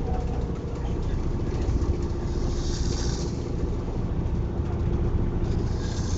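A person snoring, with two hissing breaths about three seconds apart, over the steady low rumble of a moving vehicle.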